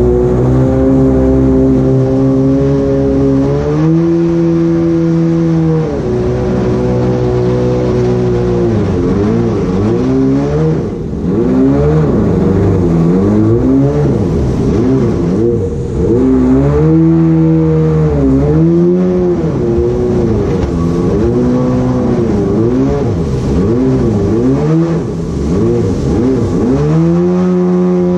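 Mini jet boat's engine running under way, heard from on board. Its pitch holds steady at first, then swings up and down again and again through the middle as the throttle is worked, and settles steady near the end.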